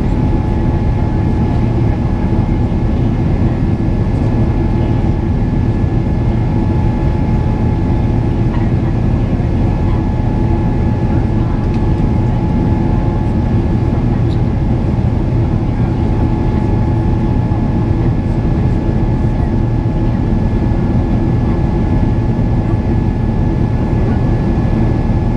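Cabin noise of a Boeing 777-300ER in flight, next to its General Electric GE90 turbofan: a loud, even rush from the engine with a steady high whine running through it.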